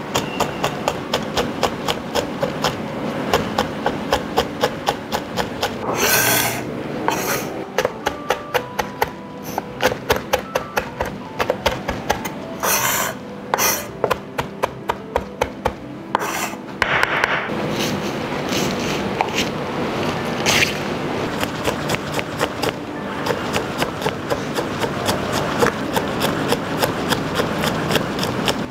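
Chef's knife chopping on a wooden cutting board, mincing red chillies and then spring onion, with quick, steady knocks of the blade on the wood. Now and then the chopped pile is scraped together across the board, giving a few longer rasping sounds.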